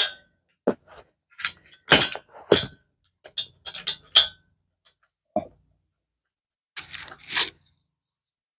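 Short, irregular metallic clicks and knocks of a powder-coated steel mounting bracket and its screw being handled and fitted against a solar module's frame, with a louder rustling scrape about seven seconds in.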